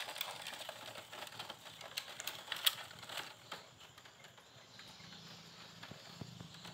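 Conure chicks scrabbling on a wire-mesh floor in a plastic crate: faint scattered clicks and light taps from their feet and wings, thinning out about halfway through.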